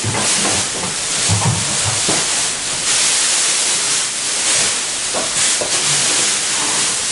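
Plastic wrapping bag rustling and crinkling as it is pulled off a portable washing machine, a dense uneven crackle over a steady hiss.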